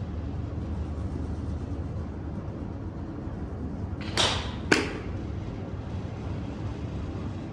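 Golf swing at a driving range: a short rushing swish, then about half a second later a single sharp click as the club strikes the ball off the hitting mat.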